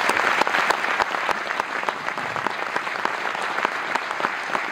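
Audience applauding: many hands clapping in a steady, even applause.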